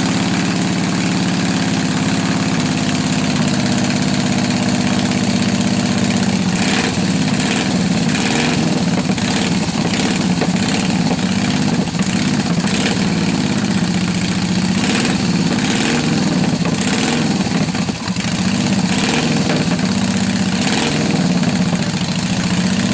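Unrestored 1928 Indian motorcycle engine running just after a cold start. It idles steadily at first, then about six seconds in it is revved up and down repeatedly with a wavering pitch, settling near the end.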